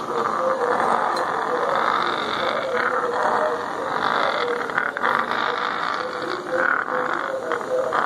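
African grey parrots calling, short low notes repeated over and over.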